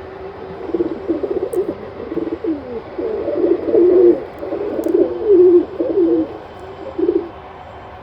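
Pigeons or doves cooing, a run of low, repeated coos that stops about seven seconds in.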